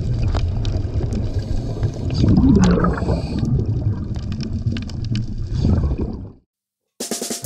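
Water noise, gurgling and sloshing over a low rumble with scattered small clicks, cutting off abruptly about six seconds in. Acoustic guitar music starts just before the end.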